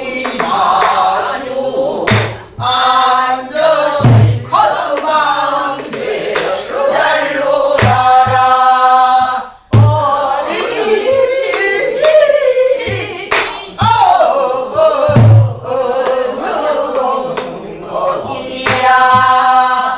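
Group of voices singing a Namdo folk song in the Korean sori style, accompanied by soribuk barrel drums struck with sticks. A deep drum thump falls every second or two, in an uneven rhythmic cycle under the long, bending sung lines.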